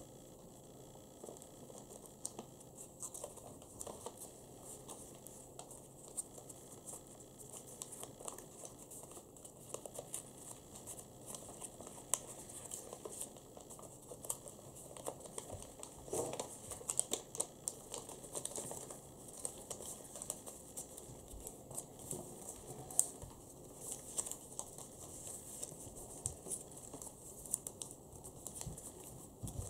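A folded paper origami model being unfolded by hand: the sheet crinkles and rustles in many short, irregular crackles as folds are pried open and flattened.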